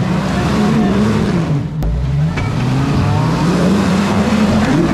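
Jeep Cherokee XJ engine revving up and down several times under hard throttle, with a sharp knock about two seconds in.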